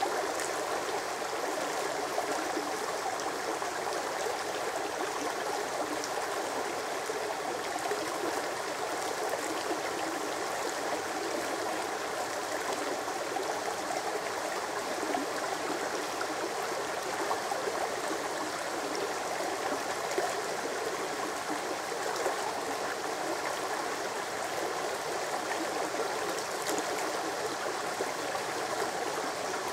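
Shallow, rocky brook running over stones and small riffles: a steady, even rush of water.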